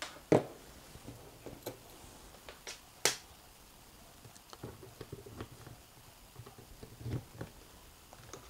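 Scattered light clicks and taps of a thermocouple probe and multimeter being handled, with one sharper click about three seconds in.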